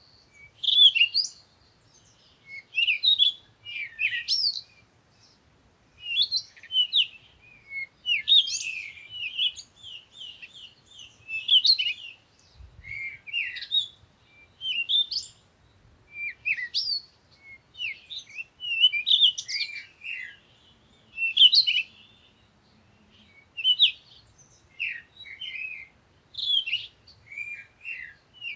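Songbirds singing in short phrases of quick, high chirping notes that sweep up and down, repeated every second or two with brief pauses between phrases.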